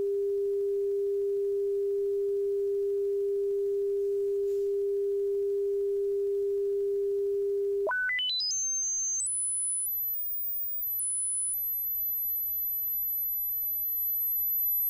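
Test tones from a Pioneer CT-939 cassette deck's line output during measurement: a steady mid-pitched pure tone, then about eight seconds in a quick staircase of rising tones climbing to a very high pitch, which settles on a steady high tone.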